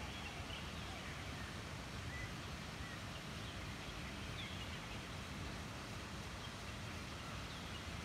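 A few faint, short bird chirps scattered over a steady outdoor hiss.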